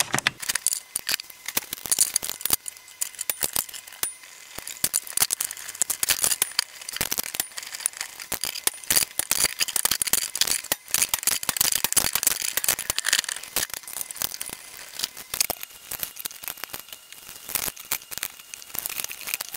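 Pliers and small metal hardware clinking and rattling against the sheet-metal base of an AR XA turntable, a dense run of irregular clicks and taps.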